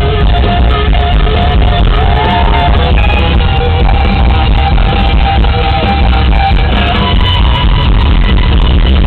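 Loud live rock band playing through a concert PA, with a sustained, bending lead guitar line over heavy bass and drums, recorded with a distorted, muffled sound.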